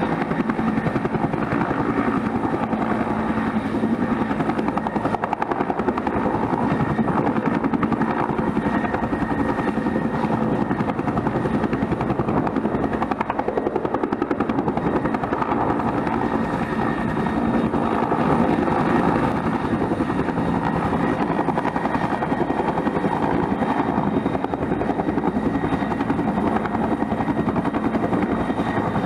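Bell 212 helicopter running steadily: its two-bladed main rotor beats in an even rhythm over the steady whine of its twin turbine engines.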